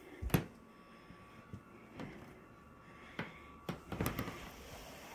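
A few scattered knocks and thumps, the loudest about a third of a second in and several more close together near the end.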